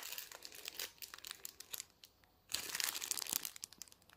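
Clear plastic packaging crinkling as a strip of small sealed bags of round diamond-painting drills is handled, a run of small crackles with a brief pause about halfway through.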